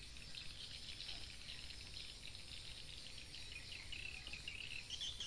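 A chorus of night insects chirping in rapid, high trills, growing a little stronger near the end.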